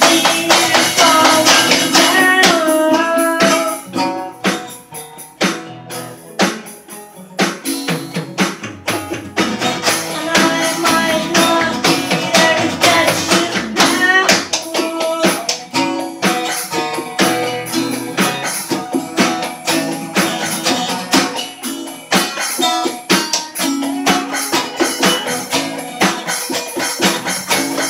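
Freestyle rock jam on two strummed acoustic guitars with an electronic drum pad kit played with sticks. The playing drops quieter about four seconds in and builds back up a few seconds later.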